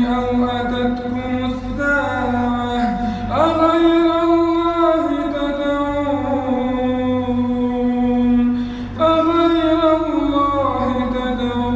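A man's voice reciting the Quran melodically, drawing out long held notes that slide and bend in pitch, with a brief break for breath about nine seconds in. A steady low hum runs underneath.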